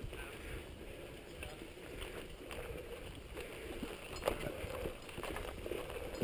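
Mountain bike rolling fast down a dirt singletrack: tyres on the trail and the bike rattling over roots and rocks, with wind rumbling on the microphone. A few sharp knocks break through, the loudest about four seconds in.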